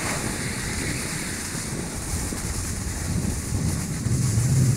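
Wind buffeting a phone's microphone while moving down a ski slope: a rough, steady rumble with a hiss above it, swelling louder near the end.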